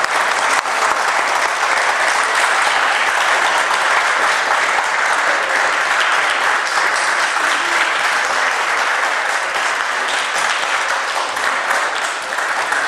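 An audience applauding, dense clapping that keeps up at a steady level.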